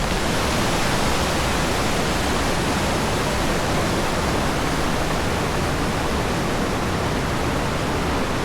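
Waterfall's steady roar of rushing, falling water, starting suddenly at the beginning and holding even throughout.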